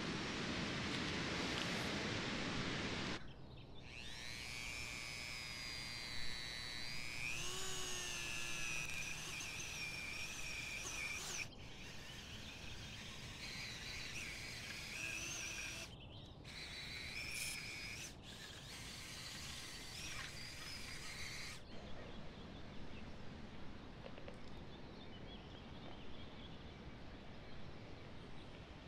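Handheld rotary tool with a small carving burr grinding into beech wood: a rushing noise for about three seconds, then a high whine that rises in pitch about a quarter of the way in. The whine cuts in and out several times, and after that there is only faint hiss.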